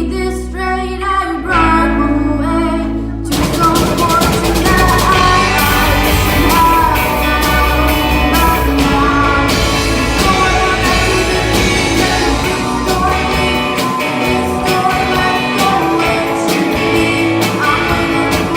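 Indie rock song with sung vocals, guitars and drums: a sparse, quieter passage gives way about three seconds in to the full band with a steady drum beat.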